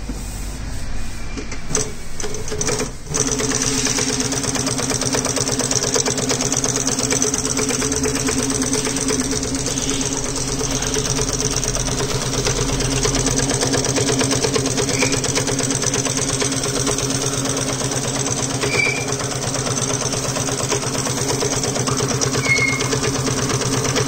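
Voltex VT-4420 double-needle compound-feed lockstitch industrial sewing machine, which comes up to a steady running speed about three seconds in after a few clicks, then runs evenly, stitching two parallel seams through heavy fabric.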